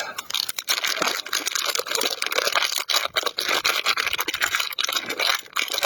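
Plastic packaging of a block of hot pot soup base crinkling and tearing as it is opened by hand, a continuous crackly rustle.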